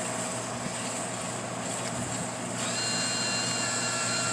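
Drink vending machine's motor running with a steady high whine that starts about two and a half seconds in and stops near the end, over a constant machine hum.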